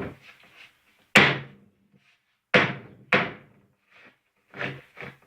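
About five sharp knocks on a plywood panel as it is seated into the wooden drawer carcass, each with a short ring; the loudest comes about a second in, and the last two are lighter.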